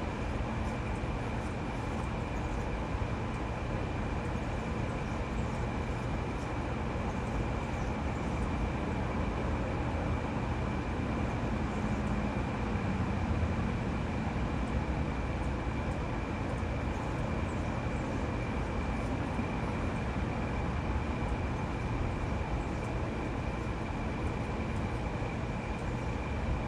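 Steady outdoor background noise: a low rumble with a constant high, thin tone over it. There is no distinct event, apart from a slight swell in the rumble about halfway through.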